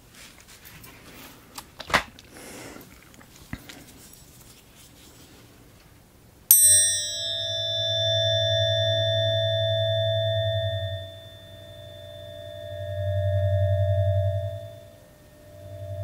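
Light handling noise and a click, then about six and a half seconds in metal tuning forks are struck. A bright clang settles into a sustained ringing tone with a low hum beneath it that swells and fades twice.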